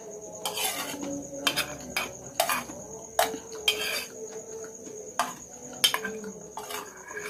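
Metal spoon clinking and scraping against a plate about nine times, spread unevenly, while someone eats. Crickets chirr as a steady high-pitched trill behind it.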